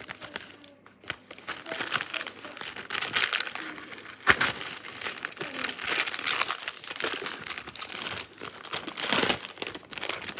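Packaging crinkling and crackling continuously as it is pulled and worked at by hand in an effort to get it open, with sharper loud crackles about four seconds in and again near the end.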